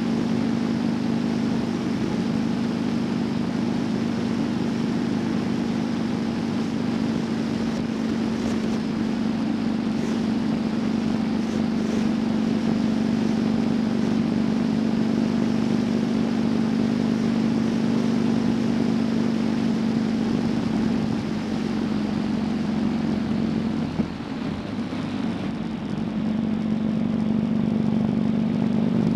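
Motorcycle engine running at a steady cruising speed, with wind and road noise. About three-quarters of the way through the engine note eases off and dips, with a single tick, then picks back up.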